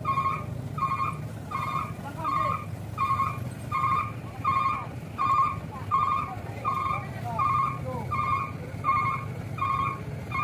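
Truck reversing alarm beeping steadily, about two beeps a second, over the low, steady running of truck engines.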